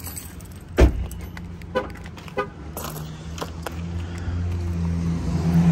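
A car door slams shut about a second in, followed by a few light clicks. A vehicle engine hums steadily and grows louder toward the end.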